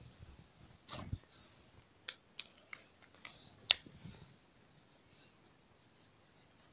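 Whiteboard duster and marker being handled: a dull knock about a second in, then a run of sharp clicks, the loudest just before four seconds in.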